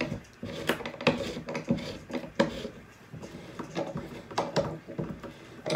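Steel T-handle screw clamps being loosened on a wooden press, with irregular clicks, knocks and rubbing from the turning screws and handles.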